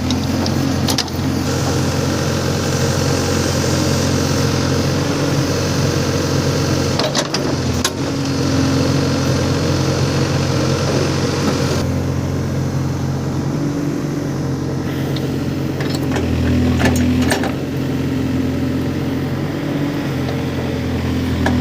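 Heavy diesel engine of earth-moving machinery running steadily under working load, rising in load now and then, with a few sharp clanks about seven to eight seconds in and again around seventeen seconds.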